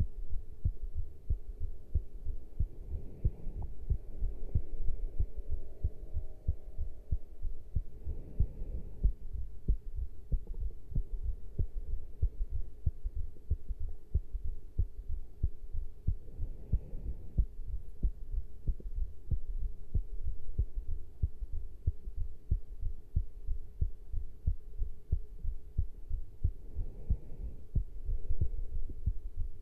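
Human heartbeat recorded close to the chest after caffeine intake: a continuous run of low, repeated thumps, with a few brief swells of rustling noise.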